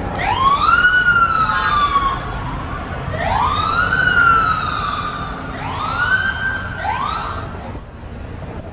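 Emergency vehicle siren wailing: four rising-and-falling sweeps, each climbing quickly and then sliding down slowly, the last one cut short, stopping near the end.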